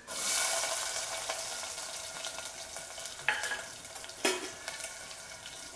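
Chopped onions hit hot oil in a metal pot and sizzle loudly at once, the sizzle slowly fading as they fry. A spoon knocks against the pot twice, about three and four seconds in.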